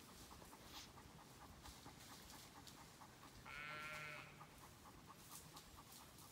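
A Zwartbles sheep bleats once, a short, faint call a little past halfway.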